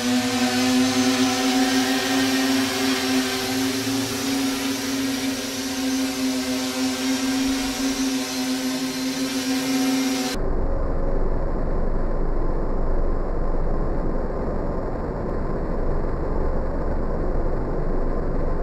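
Home-built H-frame quadcopter's four brushless motors and propellers humming steadily at one pitch while it hovers. About ten seconds in the hum cuts off abruptly, replaced by a muffled, low rushing noise.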